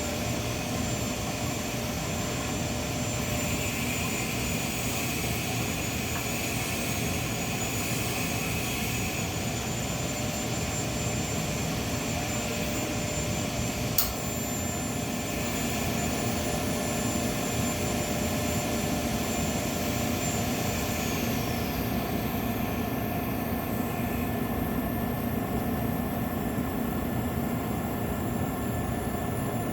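Steady mechanical drone with a faint high whine that glides down and fades about two-thirds of the way through, and one sharp click near the middle.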